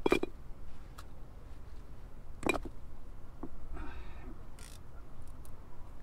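A few separate sharp clacks and knocks of loose rocks being handled and set against each other, with a short scrape, over a steady low rumble.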